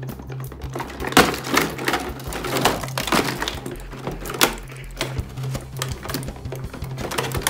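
Clear plastic packaging crinkling and rustling as it is cut and pulled apart by hand, with irregular sharp crackles every half second or so.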